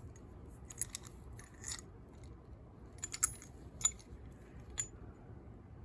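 Faint metallic clicks and clinks of keys being handled with an ERA five-lever padlock: about seven short, separate taps spread unevenly over a few seconds.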